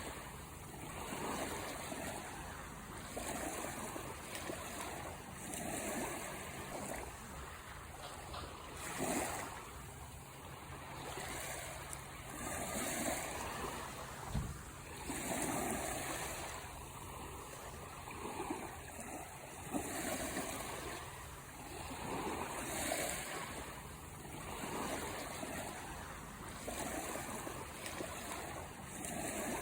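Small sea waves breaking and washing up on the shore, swelling and easing every two to three seconds. There is a single brief low thump about halfway through.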